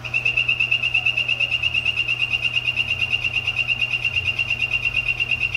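Male bicolor poison dart frog calling: one long, steady, high-pitched trill of rapid even pulses, about ten a second.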